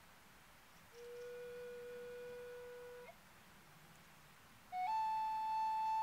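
A flute playing slow, held notes: a low note held for about two seconds, then after a short pause a higher note that steps up slightly and is held.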